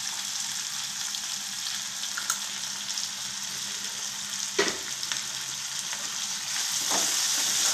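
Chopped onions and tomato sizzling in hot oil in a wok as they are sautéed, with a steady hiss. A spatula clicks against the pan about halfway through and again near the end as the mix is stirred, and the sizzle grows louder near the end.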